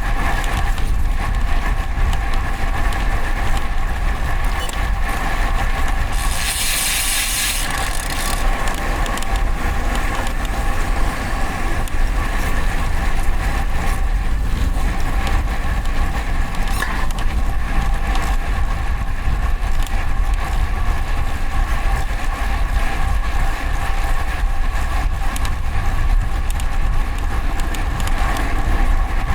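Wind rushing over a bike-mounted camera microphone while a road bike rides along a street, with steady traffic noise behind it. A short hiss comes about six seconds in and lasts around two seconds.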